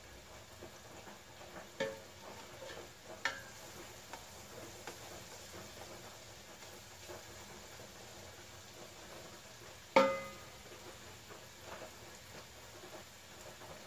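Chopped garlic and onion sautéing in oil in a large aluminium pot, a faint steady sizzle, while a metal spoon stirs them and knocks against the pot. Three ringing metallic clanks, the loudest about ten seconds in.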